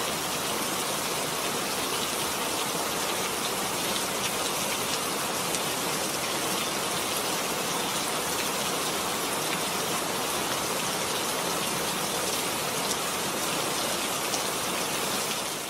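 Steady rain falling, a constant hiss of rainfall with many small drop ticks hitting a surface.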